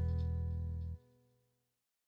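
Background folk guitar music fading out, then cutting off abruptly about a second in, leaving silence.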